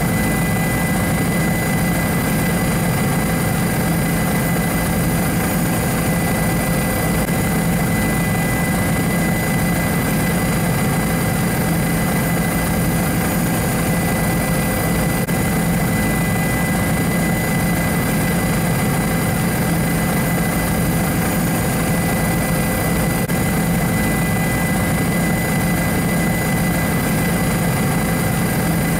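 Police helicopter's engine and rotor noise heard from on board: a steady, unchanging drone with a thin high whine over it.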